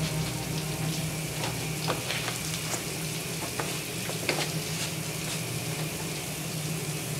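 A steady hiss over a low hum, with faint scattered clicks and rustles.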